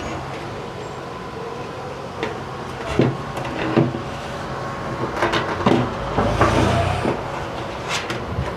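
Scattered knocks and clicks of a mid-tower PC case being handled, with a louder rumbling shuffle about six seconds in, over a steady hum.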